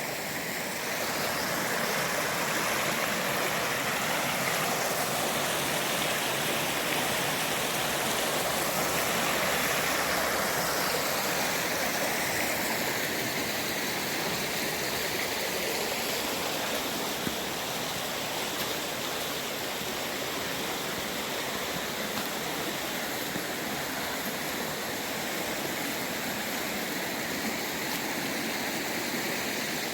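A creek running high, its water rushing steadily.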